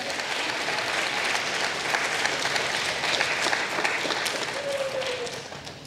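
Audience applauding with steady clapping that dies away near the end.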